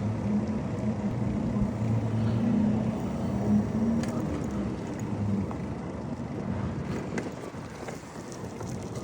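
Wind and road noise from riding a bicycle. A low engine hum, typical of a motor vehicle nearby, runs under it for about the first five seconds and then fades.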